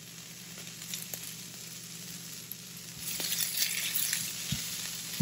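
Sliced onion, green capsicum and seitan strips sizzling in a frying pan. About three seconds in, a spatula starts stirring them and the sizzle turns louder and crackly, with light scrapes.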